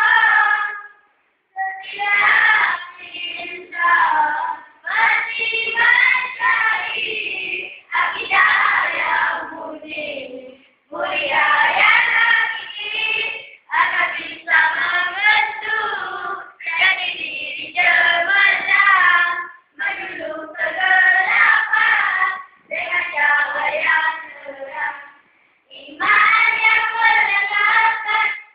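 A group of primary-school boys singing a nasyid together, in short phrases with brief pauses between.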